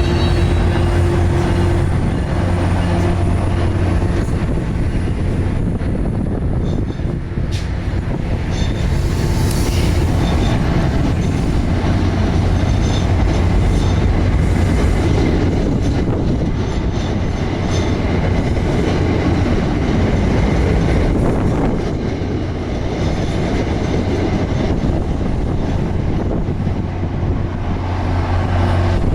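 MBTA commuter rail train, a diesel locomotive with coaches, rolling through the station with a steady low engine hum and the rumble of wheels on the rails. A thin high squeal comes in the first few seconds, and a couple of sharp knocks come about halfway through.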